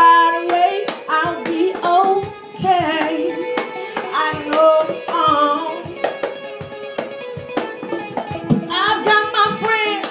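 Rock band playing: an electric guitar plays a lead line of bent, wavering notes over a hand-slapped cajón beat.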